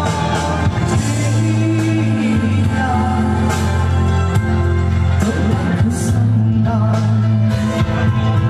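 A man singing a song into a handheld microphone over amplified accompaniment, with held bass notes and a steady drum beat, played through PA loudspeakers.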